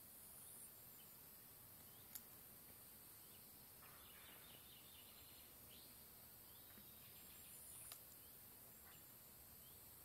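Very faint riverside nature ambience: a steady high hiss with a few short distant bird chirps scattered through it, and one sharp click about two seconds in.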